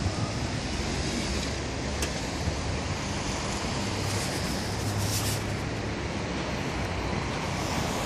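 Wind buffeting the microphone over the steady hum of distant city traffic, with a brief click about two seconds in and a short hiss around four to five seconds in.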